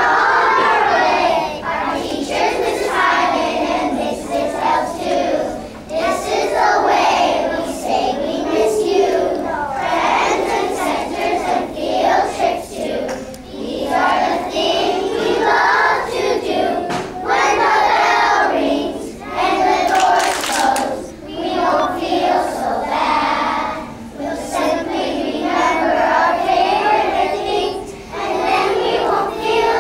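A class of young children singing together in unison, in phrases with short breaks.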